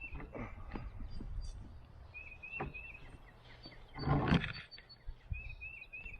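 A songbird repeats a short phrase of about three quick notes, roughly every three seconds. Scattered knocks and handling noises sound throughout, with a louder rustling thump about four seconds in.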